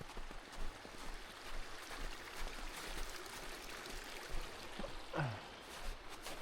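Stream water running steadily, with a few light clicks, and a short sound sliding down in pitch about five seconds in.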